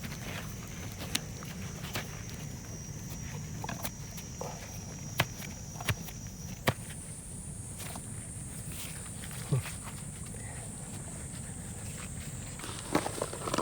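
Scattered knocks and thuds of potatoes being dug out of soil by hand, over a steady high-pitched drone that jumps higher about halfway through.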